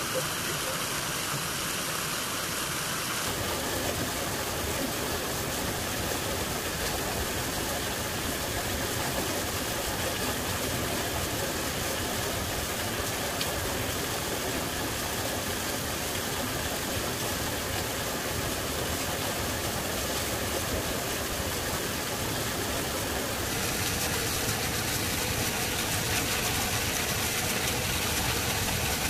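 An engine running steadily at idle. Its sound shifts slightly about three seconds in and again near the end.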